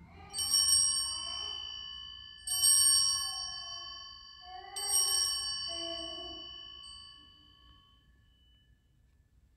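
Altar bells (Sanctus bells) rung three times, about two seconds apart, each ring a bright cluster of high tones that fades slowly. The ringing marks the elevation of the consecrated host at Mass.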